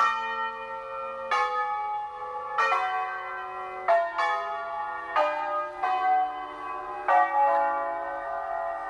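Tower bells ringing a slow tune: a new bell struck about every 1.3 seconds at a different pitch, each left ringing into the next.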